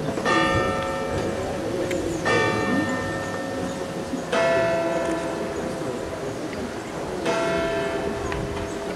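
Church bells tolling: four slow strokes about two to three seconds apart, each ringing on and fading, the later strokes on a different note from the first ones.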